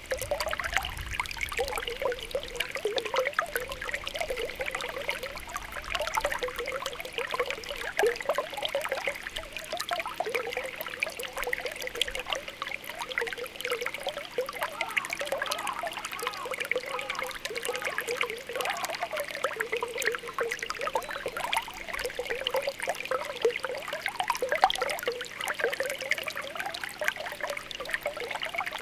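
Spring water welling up and trickling, with a steady patter of small popping bubbles.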